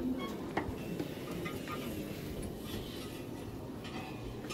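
Indoor background noise as people move through a cramped space: scattered small knocks and clicks over a steady low hum.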